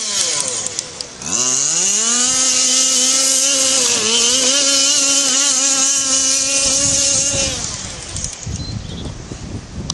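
Small two-stroke petrol engine of a large-scale FG radio-controlled car buzzing at high revs. It drops off the throttle just after the start, revs back up about a second in, and holds high with a brief dip. Near the end the engine sound falls away and a low rumble of wind on the microphone is left.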